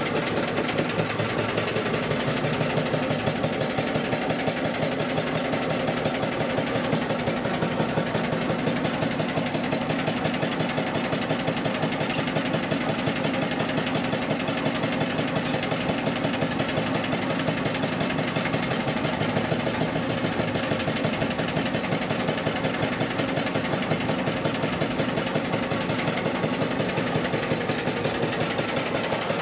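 Inboard engine of a small wooden riverboat running steadily under way, heard from inside the cabin as a loud, fast, even beat of engine strokes.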